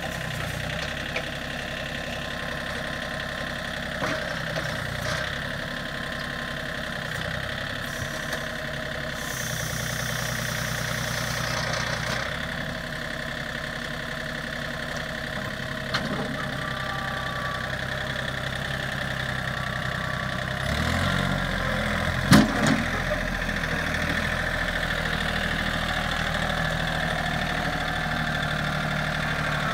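John Deere compact tractor's diesel engine running steadily while the backhoe digs. About two-thirds of the way in the engine note shifts and two sharp clanks come close together.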